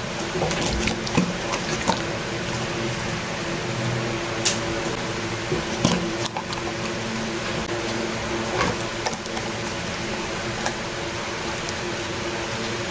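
A Labrador puppy eating: wet, squishy mouth sounds and scattered short clicks at irregular intervals, over a steady mechanical hum.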